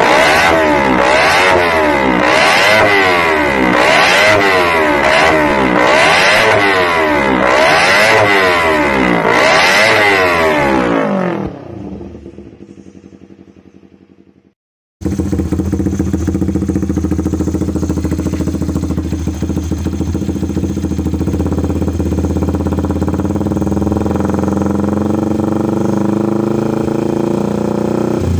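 Motorcycle engine revved over and over in quick rising-and-falling blips, then dying away. After a brief silence, a motorcycle engine idles steadily.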